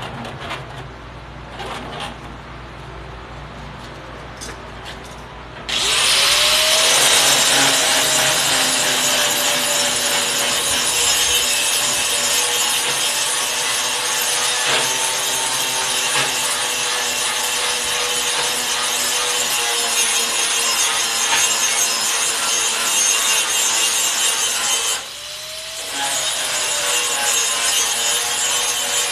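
Angle grinder spinning up about six seconds in and grinding metal, a loud steady hiss with a whine that sags a little under load. It stops briefly near the end, then spins up and grinds again. A few knocks come before it starts.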